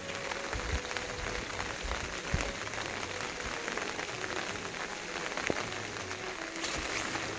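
Steady patter of rain, a dense haze of tiny ticks, with faint held tones stepping up and down underneath.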